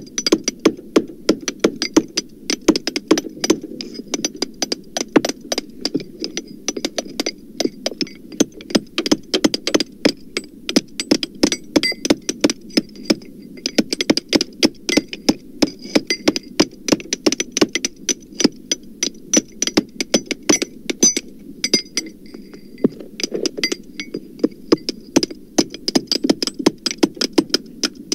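Rapid, irregular hammer blows, several a second, from a recording of hammering that has been digitally lowered in pitch, over a steady low hum.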